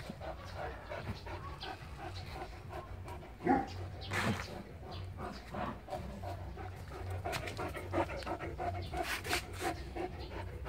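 Great Dane panting in quick, even breaths while tied to its mate after mating. There is a short louder sound about three and a half seconds in.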